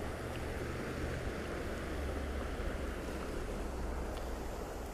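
Steady rush of creek water running over a riffle, with a low rumble underneath.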